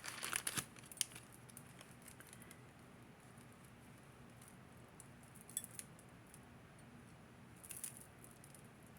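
Faint handling of small pieces of jewelry and their bags: a few light clicks and rustles near the start, about five and a half seconds in and near the end, over a low steady room hum.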